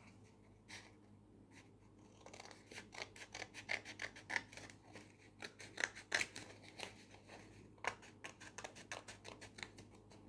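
Metal scissors cutting through folded craft paper: a quick run of short snips, several a second, starting about two seconds in.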